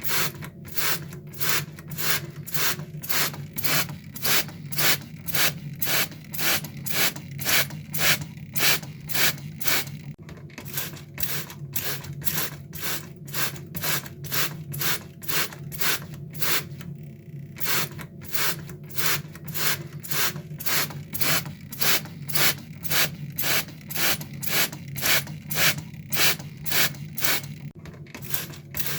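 Water spray squirting in short, regular bursts of hiss, about two a second, with two brief pauses, over a steady low hum.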